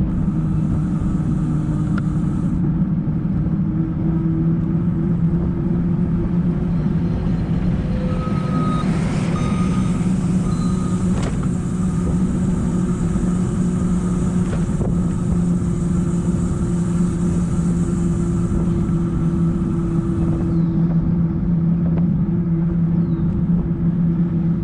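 Steady rush of wind on the microphone and the hum of bicycle tyres on pavement while riding fast downhill, with a constant low drone throughout.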